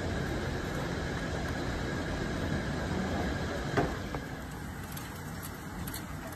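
Hailstorm: a steady roar of wind-driven hail and rain. About four seconds in there is a sharp click, and after it the roar is quieter, with a few scattered ticks of hailstones.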